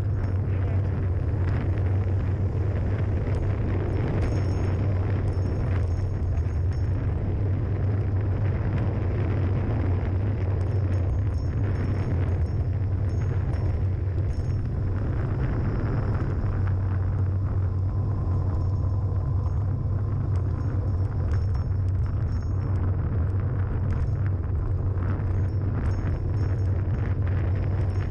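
Steady, heavy wind buffeting on the camera microphone, mixed with rolling road rumble, as it moves fast downhill on pavement.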